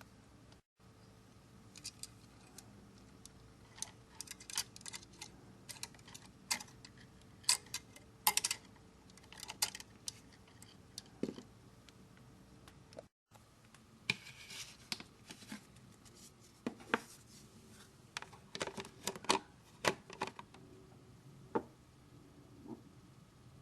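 Irregular clicks, snips and scrapes of hand tools and hands working on a single-pole wall switch and its wiring, with bursts of quick clicks between quieter stretches.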